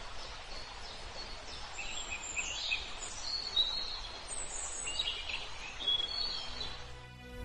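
Birds chirping and whistling in short high calls over a steady outdoor background noise, the calls clustered in the middle seconds.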